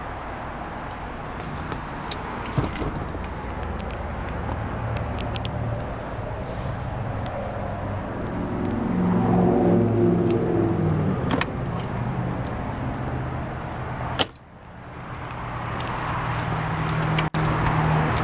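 A motor vehicle engine running steadily, swelling louder about nine to eleven seconds in. A single sharp knock comes about fourteen seconds in, and the sound briefly drops away after it.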